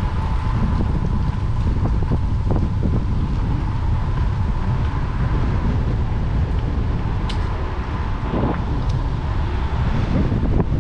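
Strong wind buffeting the microphone of a moving bicycle's camera: a steady, heavy rumble. A faint steady tone runs underneath.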